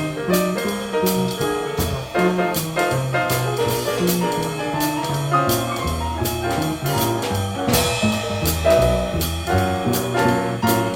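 Live small-group jazz: a double bass plays a moving line under piano, with a drum kit keeping time on the cymbals. The bass gets stronger about halfway through.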